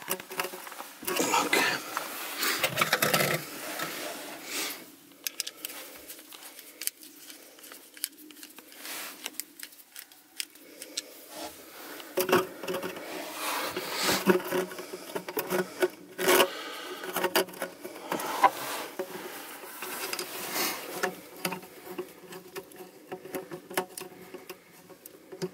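Flexible aluminium heater ducts and metal hose clamps being handled and fitted: irregular clicks, scrapes and crinkling rustles.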